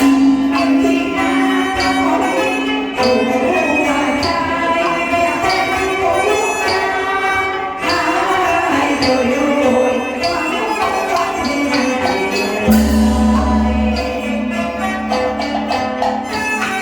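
Teochew opera ensemble music: Chinese string instruments playing a melody over regular sharp percussion strokes. A low steady tone joins near the end.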